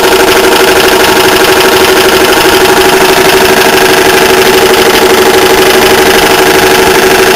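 Old Ingersoll Rand belt-driven piston air compressor running steadily at speed on its Century 1 hp single-phase repulsion-start induction motor, a loud steady hum with a fast, even pulsing from the tired piston pump.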